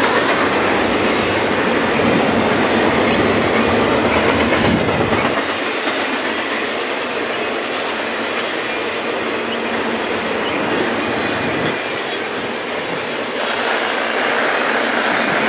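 Double-stacked container cars of a freight train rolling past: a steady noise of steel wheels on rail, with occasional light ticks.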